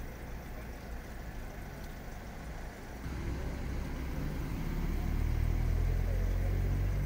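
A motor vehicle's engine running as a steady low rumble, growing louder about three seconds in.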